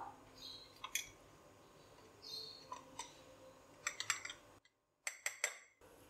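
Faint, scattered clinks and taps of a metal spoon and a small dish against a ceramic mug as flour is tipped into the batter, one clink ringing briefly about two seconds in.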